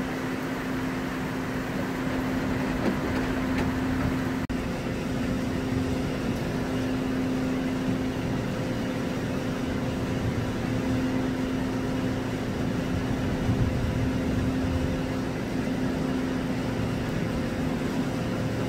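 Steady hum of a standing electric commuter train (KRL Commuter Line) with a constant low tone over a broad rushing hiss, briefly dropping out about four and a half seconds in.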